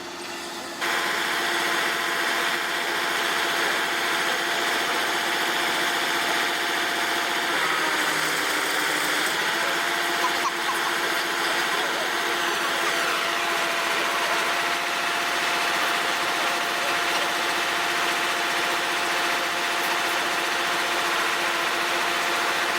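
An engine running steadily at a constant pitch, coming in suddenly about a second in.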